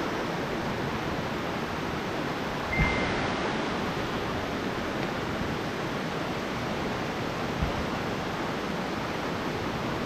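Waterfall rushing steadily, an even hiss of falling water. A soft thump comes about three seconds in, and a fainter one near the end.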